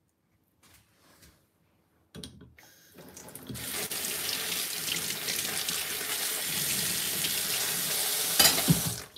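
Kitchen tap running hard into a sink, starting about three seconds in and cutting off near the end, with a couple of knocks just before it stops.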